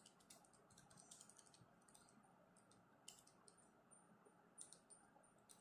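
Faint clicks of calculator keys being pressed in short runs, working out a sum.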